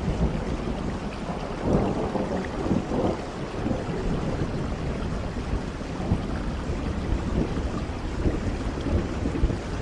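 Steady rain with a deep rumble underneath, swelling a little about two and three seconds in.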